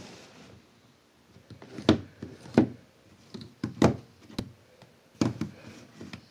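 Plastic speed cubes being set down and shifted on a tabletop: a series of sharp, irregular knocks and taps, several of them loud.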